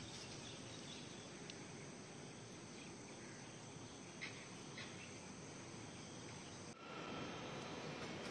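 Faint outdoor ambience over woodland: a steady hiss of insects with a few short bird chirps. About seven seconds in it cuts abruptly to a louder, steady outdoor noise.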